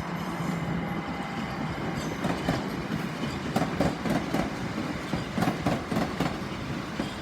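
Class 375 Electrostar electric multiple unit moving through the station over a steady hum, its bogies clattering over rail joints and pointwork in a run of irregular clicks that starts about two seconds in.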